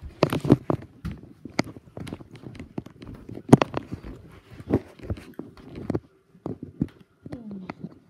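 Irregular knocks, bumps and scuffs from footsteps and a handheld phone camera being handled and moved, with a short falling creak near the end.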